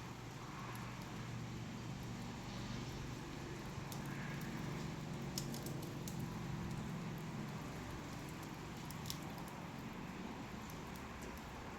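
Wood fire burning: a steady low rush with scattered sharp crackles and pops.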